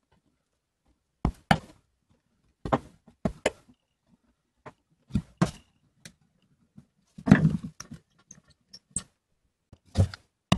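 Scattered clicks and knocks from a screwdriver working a screw in an antique wooden plow plane and from the plane's wooden body being handled on the bench, with the loudest cluster of knocks about seven seconds in.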